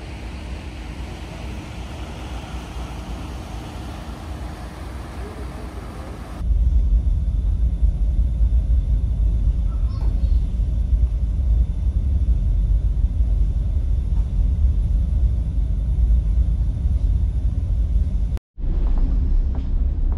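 Ambience aboard a car ferry underway: first a steady hiss of wind and water on the open deck, then, after a sudden cut about six seconds in, a louder heavy low rumble of the ferry's engines and hull, which carries on into the passenger cabin after a brief dropout near the end.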